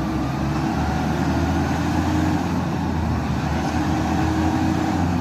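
Engine of a heavy vehicle running steadily, a low continuous drone with its pitch shifting slightly now and then.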